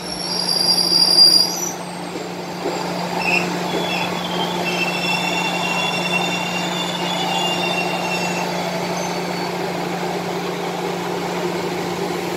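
Electric commuter train (KRL) pulling into the station, its wheels squealing in high thin tones that come and go over the first several seconds. A steady low hum runs underneath.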